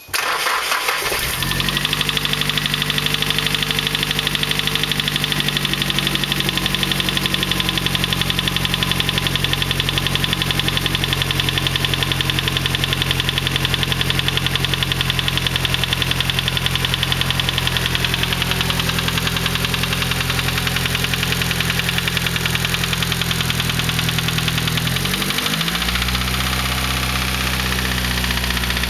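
Nissan SR20DET turbocharged 2.0-litre four-cylinder starting from cold and idling with a rapid, steady knock, a cold-engine knock that new lifters and a new timing chain tensioner have not cured. About 25 seconds in, the idle speed dips briefly, then settles.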